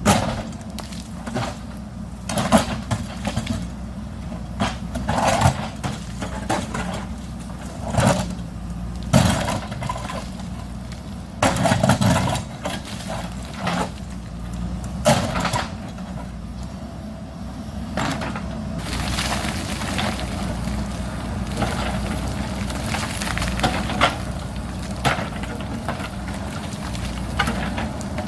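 JCB backhoe loader's diesel engine running while its bucket digs into and strikes rock, giving irregular sharp knocks, cracks and clatters over the steady engine hum. About two-thirds of the way through the knocks thin out and a steadier, brighter engine noise takes over.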